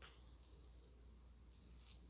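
Near silence with a low steady hum. Two faint soft squishing rustles come from fingers pressing rice, beans and sauce into a ball by hand, one about half a second in and one near the end.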